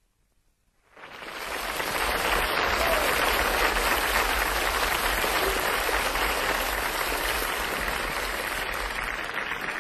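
Studio audience applauding, starting abruptly about a second in and continuing steadily.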